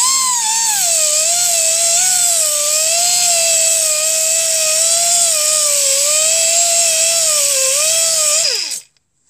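A Silverline 50 mm mini pneumatic orbital sander with an 80-grit pad, running on compressed air while sanding a block of wood. It gives a loud high whine over strong air hiss. The whine starts at once, wavers a little in pitch as the pad works the wood, then falls in pitch and stops about a second before the end.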